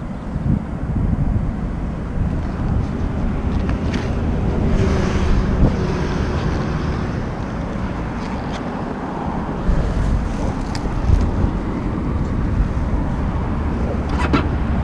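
Dirt bike engine running while being ridden, with wind buffeting the microphone.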